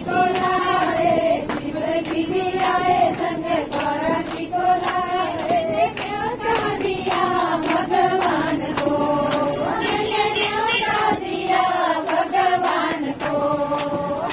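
A group of women singing a devotional song together in unison, with rhythmic hand clapping keeping the beat, inside a bus.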